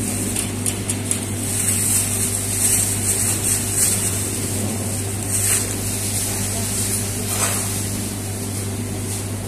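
Thin plastic bag rustling and crinkling in short bursts as gloved hands handle a bag of raw chicken pieces, over a steady low machine hum.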